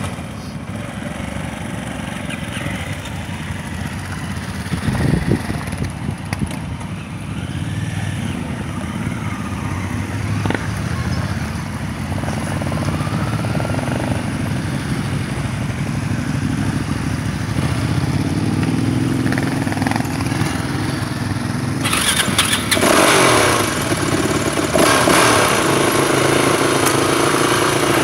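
Several trail motorcycles riding slowly past one after another, engines running at low revs. The engine sound swells about three quarters of the way through as a closer bike passes, its revs rising and falling.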